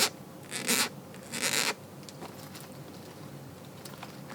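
Three short scraping swishes as the shiny black boots are handled, the last the longest, then a quiet room.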